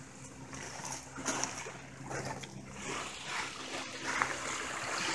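Soft splashing of water at the edge of a pebble beach, swelling a little louder near the end.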